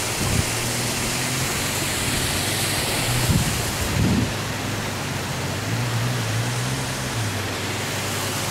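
Steady rushing hiss of water pouring through the dam, with a few brief low thumps.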